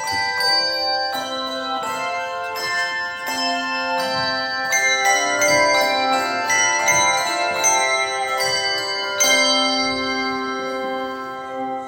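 A bell ensemble playing a melody on tuned bells: many struck notes ringing over one another, a new strike every fraction of a second. The playing stops at the very end and the ringing dies away.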